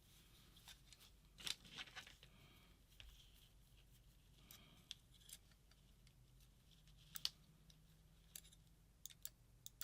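Faint small clicks and light scraping of a tool turning the trigger adjustment screw on a paintball marker's trigger, backing it out.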